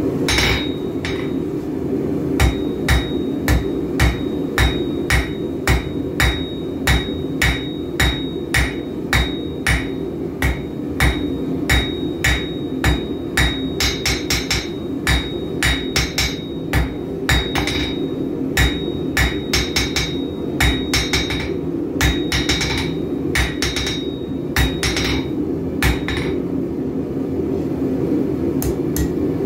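A blacksmith's hammer striking red-hot steel bar stock on an anvil, about two to three blows a second, each blow with a short ringing note. A steady low roar runs underneath. The blows thin out and pause near the end.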